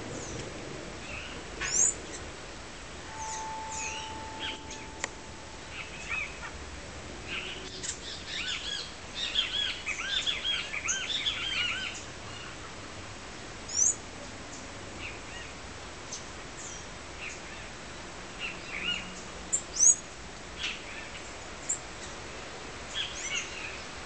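Assorted songbirds chirping and calling: scattered sharp chirps and quick high sweeping notes, with a run of rapid warbled song from about eight to twelve seconds in.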